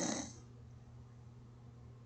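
A person snoring: the tail of one snore fades out less than half a second in, followed by a quiet pause between snores over a faint steady low hum.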